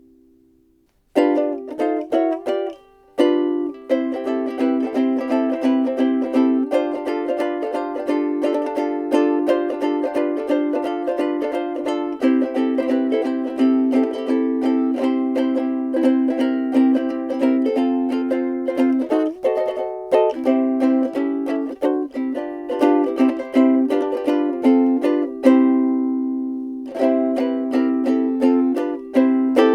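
Frayns FRUK-5MS soprano ukulele with a solid Honduras mahogany body, played with a steady rhythm of chords and notes. It stops briefly twice and ends on a chord left ringing.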